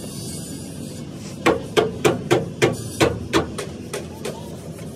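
A hammer striking metal in a fast run of about seven loud blows, roughly four a second, starting about a second and a half in, followed by lighter taps.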